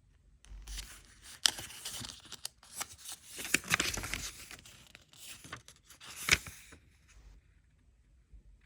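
Paper pages of an instruction manual being handled and turned, rustling and crinkling with a few sharp snaps of paper.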